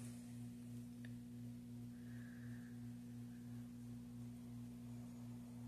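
A low, steady electrical hum under quiet room tone, with one faint click about a second in.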